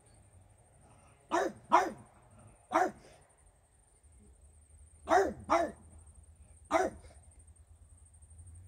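French bulldog barking: six short barks in two bunches, each a quick pair followed by a single bark.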